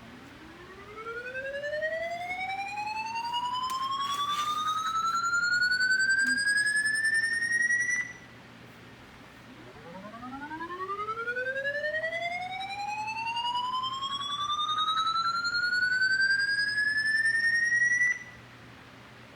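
A played 'sound that makes dogs tilt their heads': a tone with overtones gliding slowly upward from low to high over about seven seconds, then cutting off suddenly, heard twice.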